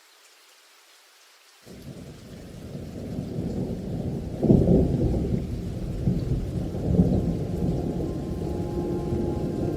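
Rain falling with a faint steady hiss, then about two seconds in a low rumble of thunder sets in and builds, swelling loudest near the middle and rolling on.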